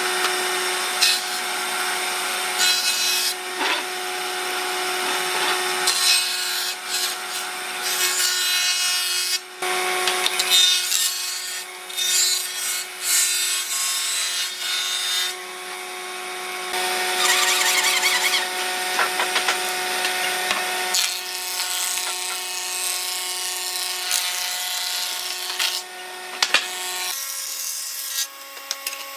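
Jointer (surface planer) of a combination woodworking machine running and planing boards in several passes: a steady motor hum, with loud rushing cutting noise each time a board is fed across the cutterhead. The running tone drops lower near the end.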